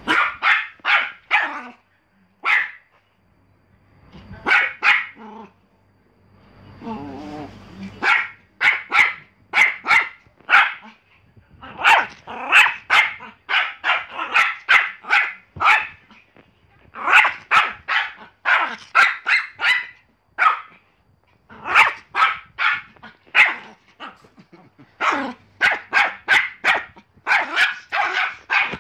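Pomeranian barking in quick runs of short, high-pitched yaps, several in a row with brief pauses between runs: excited barking while it plays with a pillow.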